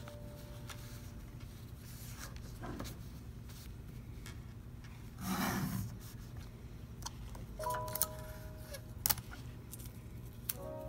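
Clear tape pulled off a desk tape dispenser in one short rasp about halfway through, with light clicks and paper handling around it. Soft background music plays underneath.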